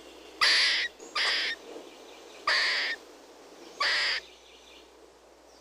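Squirrel calling: four harsh, raspy calls, each about half a second long, spaced unevenly.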